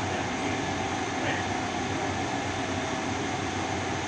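Steady whirring hum of running workshop machinery or fans, even in level throughout, with a faint light knock of metal being handled about a second in.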